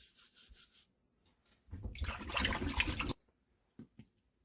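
A lemon scrubbed by hand, a few faint rubbing strokes, then water running for about a second and a half as it is rinsed; two small clicks near the end.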